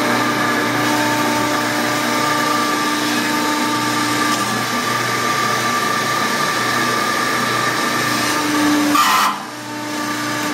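Motor-driven hydraulic shop press running with a steady hum as its ram closes down on a foam-and-MDF stack, pressing a heated Kydex sheet into a sheath mould. About nine seconds in there is a brief hiss, and then it runs on more quietly.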